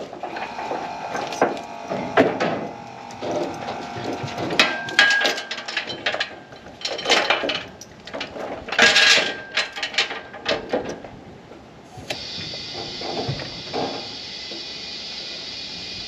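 Irregular metallic clicks and clanks of tow rigging being handled and hooked up. About twelve seconds in, this cuts abruptly to steady background music.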